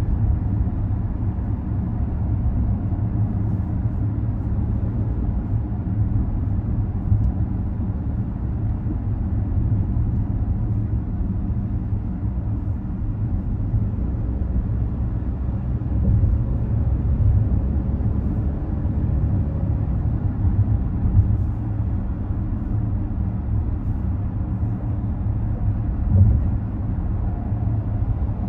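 Car driving: a steady low rumble of engine and road noise, swelling slightly now and then.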